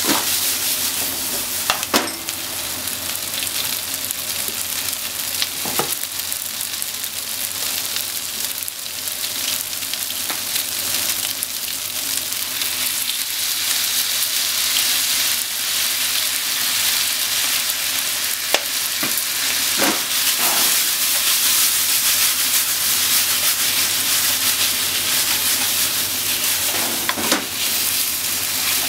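Sliced pork and onion sizzling steadily in a frying pan as they are stir-fried with long cooking chopsticks, with a few sharp knocks of the chopsticks against the pan.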